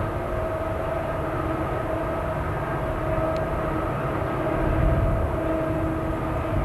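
Steady low rumble of an approaching freight train's diesel locomotives, still out of sight, with a steady droning tone over it that swells slightly about five seconds in.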